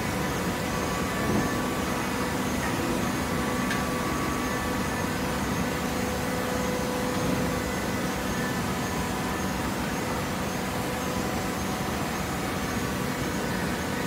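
TCM horizontal hydraulic baler running: a steady machine hum from its motor and hydraulic pump, with a few faint steady whining tones.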